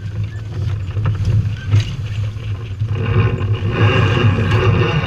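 Strong wind buffeting the microphone with a steady low rumble, over water rushing along a sailboat's hull. A louder wash of spray and breaking bow wave comes from about three seconds in.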